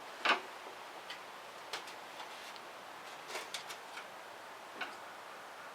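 Scattered light clicks and ticks, about ten at uneven spacing, the first the loudest: hand work with tools and small parts while prying foam weatherseals off a car's hatch area.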